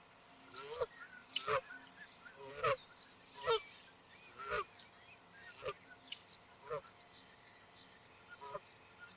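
Canada geese honking, about eight honks spaced roughly a second apart, the loudest in the first half. Faint high chirping calls come in over the later seconds.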